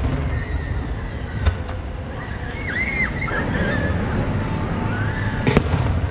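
Aerial firework shells bursting, with one sharp bang about five and a half seconds in and a smaller report early on, over a steady low rumble.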